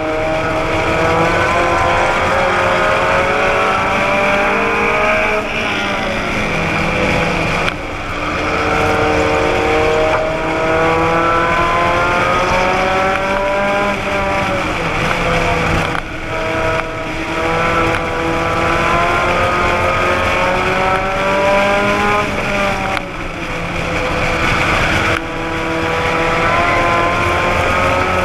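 Race car engine heard from inside the car under hard throttle, its pitch climbing steadily for several seconds and then falling back, about four times over, as it accelerates down the straights and eases off for the turns.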